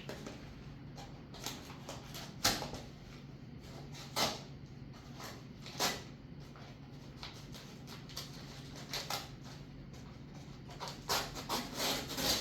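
Cardboard and plastic packaging being handled and opened: short, irregular rustles and scrapes, coming more often near the end, over a steady low hum.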